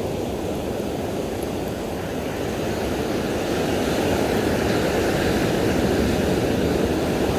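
Steady noise of wind on the microphone and waves breaking on the beach, growing a little louder about halfway through.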